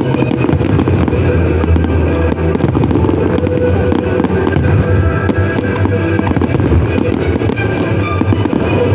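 Fireworks bursting and crackling in rapid succession over loud music.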